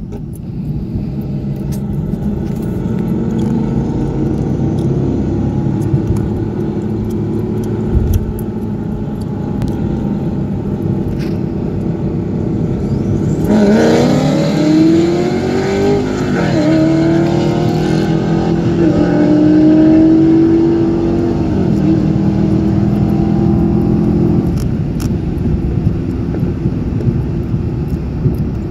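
Car engine and road noise heard inside the cabin at highway speed. About halfway through, the engine goes to full throttle, its pitch climbing and dropping back at each of two upshifts, then it backs off a few seconds before the end.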